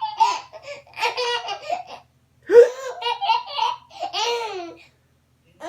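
Baby laughing in bursts, with one sharp hiccup about two and a half seconds in that is followed by more laughing.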